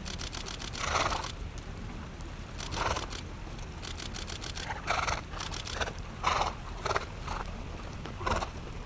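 A quick run of camera shutter clicks at the very start, then about eight short, irregular breathy bursts, horses snorting as the herd runs through snow, over a steady low rumble.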